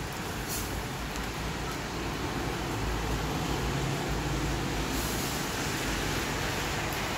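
Steady rain mixed with cars driving past on the wet road, their tyres hissing on wet asphalt; the traffic swells to a low rumble about three seconds in, then eases.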